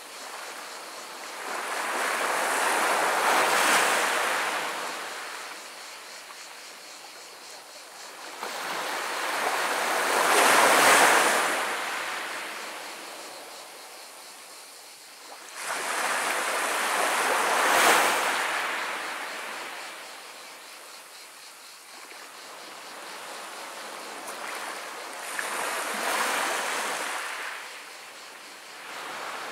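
Gentle small waves of the Mediterranean breaking and washing up a pebble beach, the water rolling over the pebbles. Four waves come in about every seven or eight seconds, each swelling up and fading away over a few seconds.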